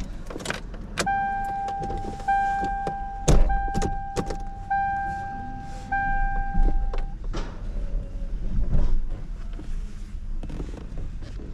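An electronic warning beeper sounds five long beeps of one steady pitch, each about a second long with short gaps. Scattered clanks and knocks run through it.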